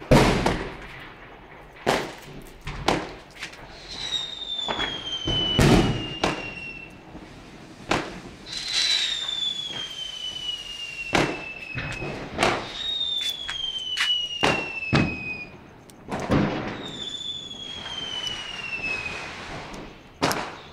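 Diwali fireworks going off: sharp firecracker bangs at irregular intervals, the loudest right at the start, and four whistles that each fall in pitch over two to three seconds.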